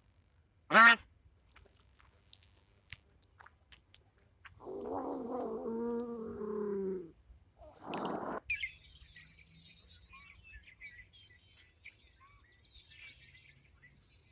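A loud duck quack about a second in, then a longer drawn-out animal call of a couple of seconds, a short harsh call, and faint high bird chirping through the rest.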